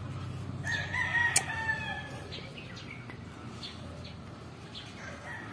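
A rooster crowing once, about a second and a half long, with a single sharp click partway through.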